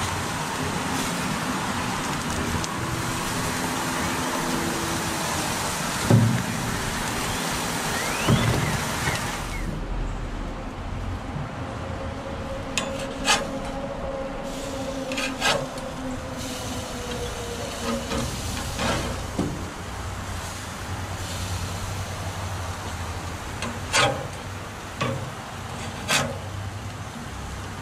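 Gas grill hissing steadily as snakehead fillets are laid on the hot grates; the hiss eases off about ten seconds in. Scattered sharp clicks follow as a metal spatula and a wooden board knock against the grill grates.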